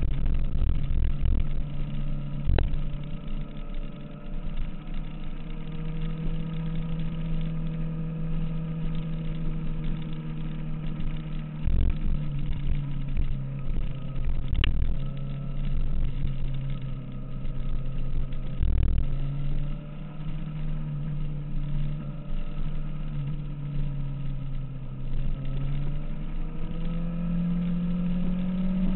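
Kawasaki ZX-6R motorcycle's inline-four engine running on the move, its pitch shifting with throttle and gear and climbing near the end as it accelerates. Wind buffets the camera microphone, with a couple of brief clicks.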